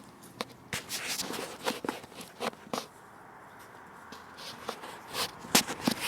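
Footsteps of someone walking, a string of short scuffing steps with a brief pause about halfway through; the loudest steps come near the end.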